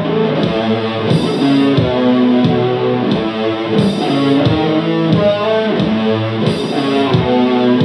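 Electric guitar playing sustained chords through an amplifier, with a figure that repeats about every two and a half seconds.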